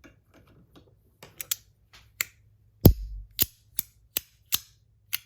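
Compoform V1.1 metal track slider fidget being slid back and forth, giving a series of sharp clicks at about two to three a second, one louder with a low knock about three seconds in.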